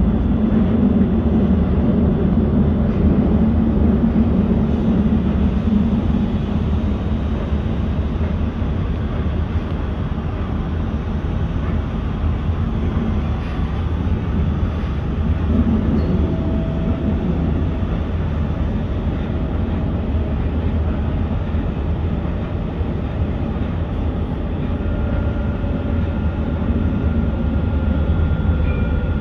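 Dubai Tram running, heard from inside the car: a steady rumble of wheels on rail. A faint high tone comes in near the end.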